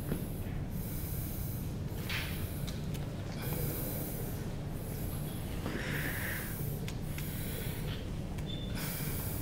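A person's heavy, rhythmic breathing: hissing breaths about once a second, over a steady low hum.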